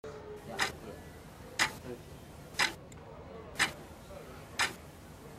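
A clock ticking once a second, five crisp ticks.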